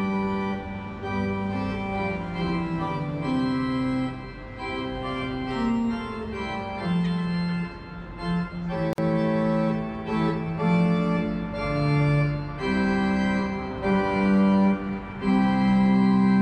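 Organ music of the Ankeruhr's figure parade: slow melody and held chords. A sharp click and a brief break come about nine seconds in.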